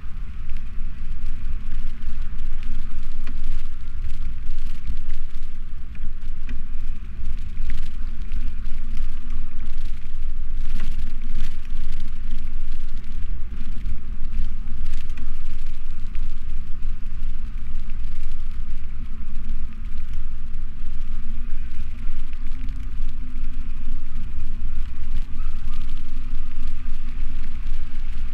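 Steady low wind noise on the camera microphone, mixed with bicycle riding noise on city streets, with scattered faint ticks and clicks.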